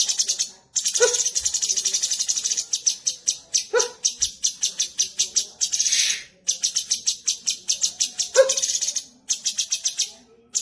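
Cucak cungkok singing a rapid chattering run of high, evenly repeated notes, about six a second, in long phrases with brief breaks. A short lower call breaks in three times, about one, four and eight seconds in.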